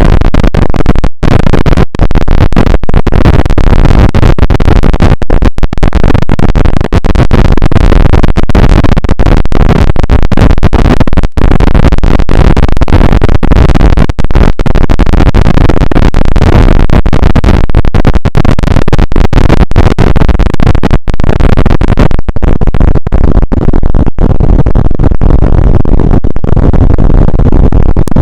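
Extremely loud, heavily clipped and distorted noise, a dense harsh wash with no clear tone, broken by many brief dropouts. The highs thin out in the last few seconds.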